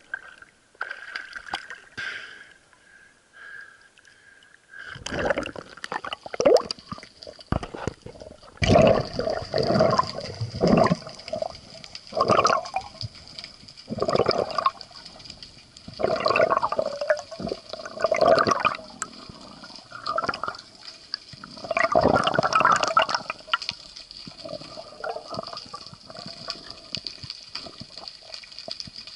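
Water gurgling and rushing past an underwater camera as a freediver swims down, in irregular surges every second or two. A faint steady high tone runs under it from about a third of the way in.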